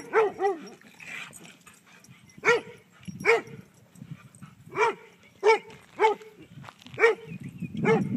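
A dog barking during rough play with other dogs: about ten short, sharp, fairly high barks, three in quick succession at the start, then single barks every second or so.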